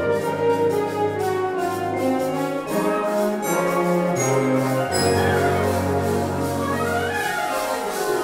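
Classical ensemble music with brass holding sustained chords, with pitches sliding up and down near the end.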